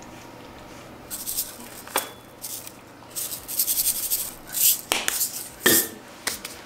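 Kitchen utensils and dishes being handled: short scrapes and rustles with a few sharp clinks and knocks, the loudest about five and a half seconds in.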